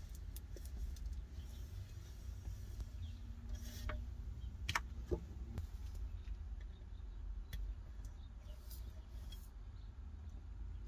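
Faint handling sounds of 3M double-sided mounting tape being pulled off its roll and pressed along the back of a mirror: scattered small clicks and crinkles, the clearest a few seconds in, over a low steady hum.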